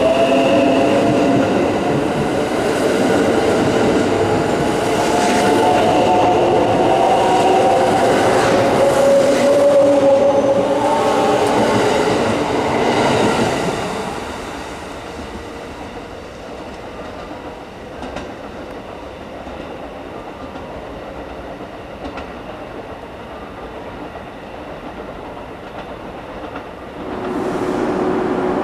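Limited express electric train pulling out, its motor whine rising in pitch as it gathers speed past the platform along with wheel noise, then fading about halfway through as it draws away. Near the end another train's sound swells in with a steady hum as it approaches.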